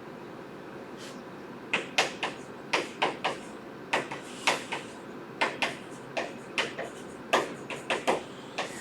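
Writing strokes on a board: a run of short, sharp, irregular taps, roughly two a second, starting a little under two seconds in.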